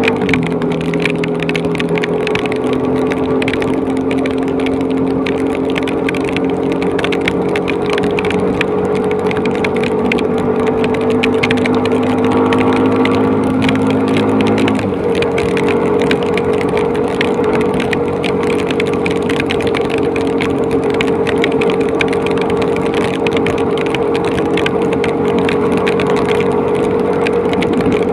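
Motorcycle engine running steadily at road speed, its pitch slowly climbing, with a sudden change in engine note about halfway through. Rain and wind hiss over it, with fine ticking.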